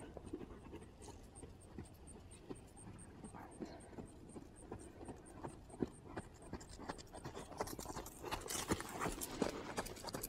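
Trakehner gelding cantering on sand arena footing: a run of muffled hoofbeats that grows louder as the horse comes close and takes a fence near the end.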